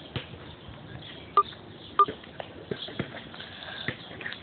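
A basketball bouncing on pavement: two sharp bounces about half a second apart, a little over a second in, each with a short ringing ping. Fainter knocks and taps are scattered around them.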